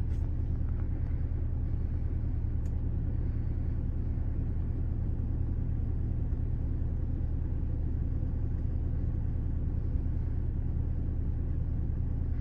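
Steady low rumble of a running car, with no change in pitch or level.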